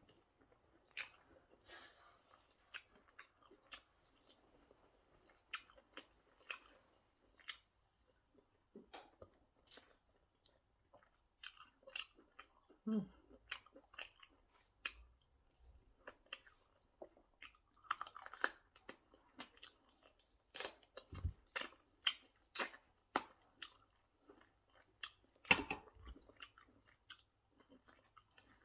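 Close-up chewing of pounded yam with egusi soup: irregular mouth clicks and smacks, denser and louder in the second half.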